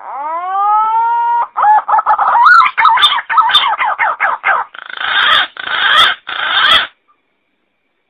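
Green pigeon (punai) calling: a long rising whistle, then a quick run of warbling, wavering whistled notes, ending in three harsh, rasping notes.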